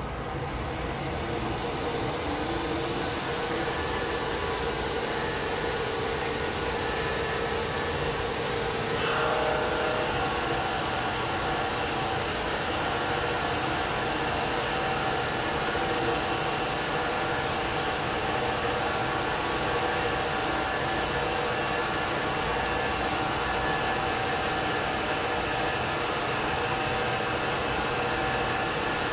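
Bridgeport milling machine running on a variable frequency drive, its end mill cutting along the side of a metal block: a loud, steady whining machine noise. A brief rising whine comes at the start, and the mix of tones shifts sharply about nine seconds in.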